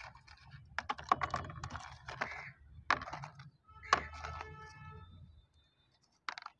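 Small plastic drone parts clicking and rattling as they are rummaged out of a cardboard box: a run of irregular clicks and rustles, then a short pause and one last click near the end.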